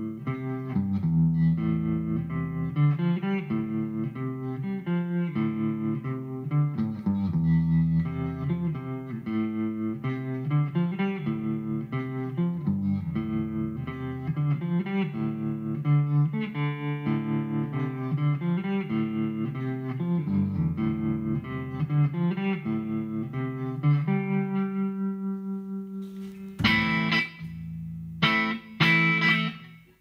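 Guitar played through a Behringer V-AMP PRO amp-modelling processor on a clean sound: picked arpeggio patterns over a moving bass line, then a chord left ringing out. Near the end come short, much brighter strummed chords with pauses between them.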